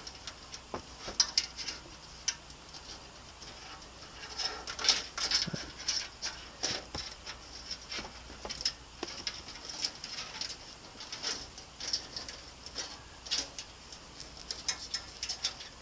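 Irregular small clicks, ticks and rustles of hands handling the cables inside a PC case, untwisting and pulling off their wire ties.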